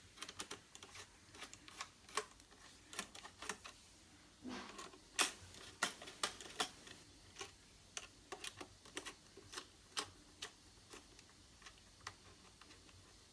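Phillips screwdriver working the three screws of a late-2009 iMac's RAM access door: light, irregular clicks and ticks of metal on metal, a little louder about five to seven seconds in.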